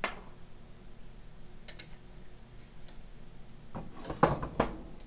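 Clicks and clatter of metal tools and parts being handled: a sharp click at the start, a faint one a little under two seconds in, and a burst of clattering about four seconds in, the loudest part.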